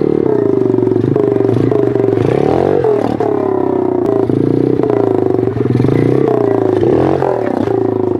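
110cc single-cylinder four-stroke pit bike engine running under way through an aftermarket Yoshimura-style exhaust, its pitch rising and falling as the throttle is worked, dipping briefly about three seconds in and again near seven seconds. Knocks and rattles from the bike over the rough track come through now and then.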